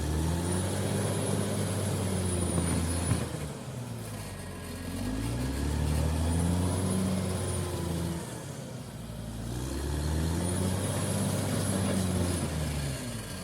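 CAT D6R XL bulldozer's diesel engine working, its pitch and loudness rising and falling three times as it loads up and eases off, with a faint high whine following the engine. A single clank about three seconds in.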